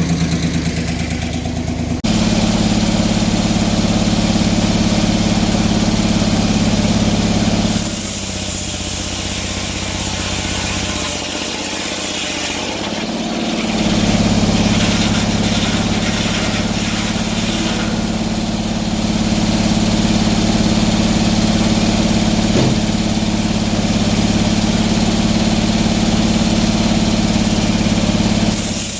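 Portable sawmill's engine running steadily, its note stepping up about two seconds in, easing off around eight seconds, and picking up again around fourteen seconds.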